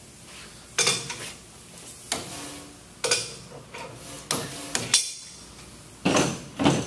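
Sharp metal clanks and clinks, about seven strikes a second or so apart: a wrench popping loose the stainless-steel check valves on a pneumatic chemical injection pump head.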